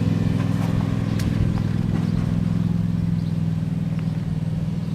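A motor running steadily, a constant low hum, with a few light clicks over it.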